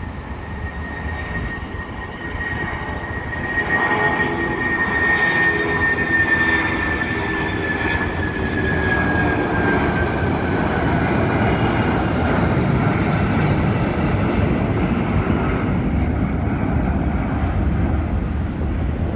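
Boeing 757-200 freighter's twin Pratt & Whitney PW2040 turbofans at takeoff thrust through lift-off and climb-out: a steady jet roar that grows louder about three seconds in, with a high whine that slowly falls in pitch as the jet passes.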